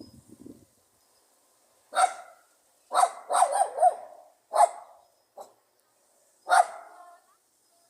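Pug barking sharply in short separate barks, with a quick run of three or four barks about three seconds in.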